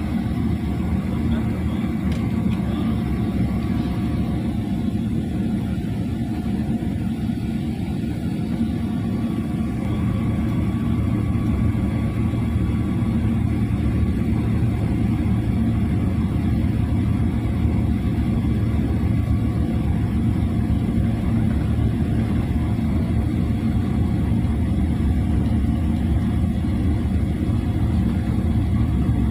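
Boeing 777 cabin noise as the airliner rolls along the ground: a steady, low jet-engine rumble with faint steady whine tones over it, growing a little louder about ten seconds in.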